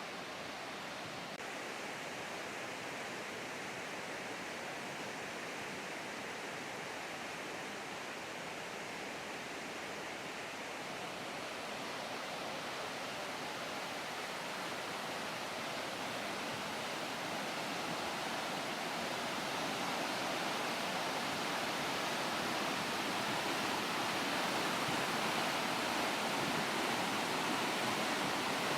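Flash-flood water rushing down a creek channel in a steady roar, growing gradually louder over the second half.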